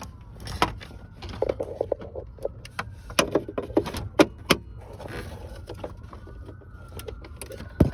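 Scattered sharp clicks and light taps of a socket extension and small trim screws being handled while dash trim screws are removed, over a steady low hum.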